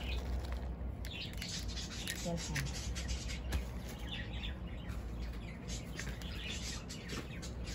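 Hands stirring and rubbing potting mix in a plastic bowl, a gritty, irregular rustling, with birds chirping now and then in the background.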